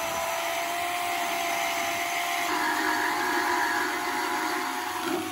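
Corded portable bandsaw running with a steady motor whine as its blade cuts through a galvanized steel post. The cutting sound grows fuller about two and a half seconds in, and the whine sags slightly in pitch near the end.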